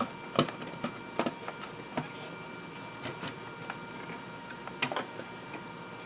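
Plastic case of an APC Back-UPS ES 500 being opened by hand: scattered clicks and knocks of the cover and its plastic clips coming apart.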